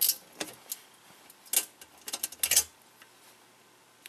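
Hard plastic clicking and knocking comes in several short clusters over the first two and a half seconds. It is a 3D-printed plastic foot being slid down into the plastic base of a Lasko floor fan.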